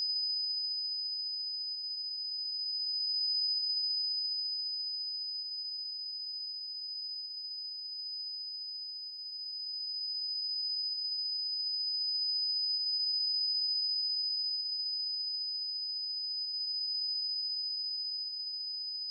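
A single steady high-pitched ringing tone that swells and fades slowly in loudness: the ringing-ears sound effect standing for a boy's hearing being knocked out by a firecracker blast.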